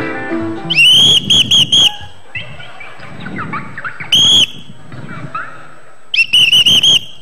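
A whistle blown in shrill, high blasts: a quick run of short toots about a second in, one longer blast around four seconds in, and another quick run of toots near the end.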